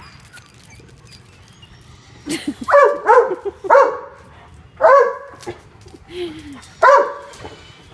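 German Shorthaired Pointer barking excitedly, a run of about five loud barks starting a couple of seconds in, with a short falling whine among them.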